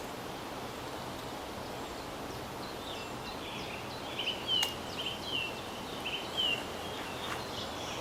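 A small bird calling a run of short, repeated high notes, about two a second, from about three seconds in until past seven, over a steady outdoor hiss. A single sharp click about halfway through.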